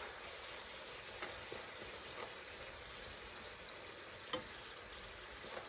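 Puri frying in hot oil in a pan: a faint, steady sizzle and bubbling, with a light tap of a utensil about four seconds in.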